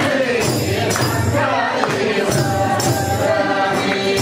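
Tamang damphu frame drums beating a steady rhythm under a group of voices singing a Tamang juhari song.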